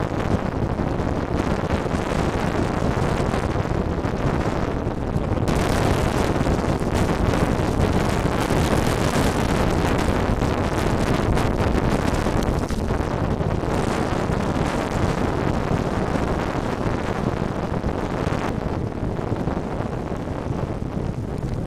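Strong storm wind rushing and buffeting across the microphone, a loud steady roar of noise. It turns harsher and hissier about five seconds in and eases somewhat near the end.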